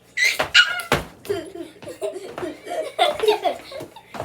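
A child's voice making a high, gliding vocal sound effect, a sharp knock about a second in, then laughter.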